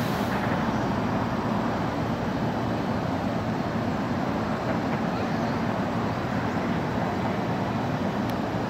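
Steady running noise of electric multiple-unit trains standing idle at a station platform, an even hum and rush of their onboard equipment that neither rises nor falls.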